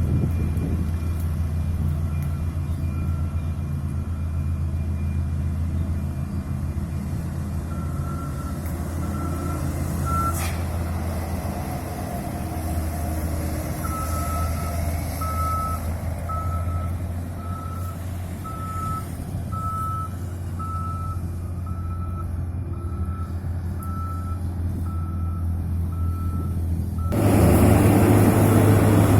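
Tour bus diesel engine idling with its reversing beeper sounding an even, repeated beep, a little over once a second. Near the end the engine grows much louder.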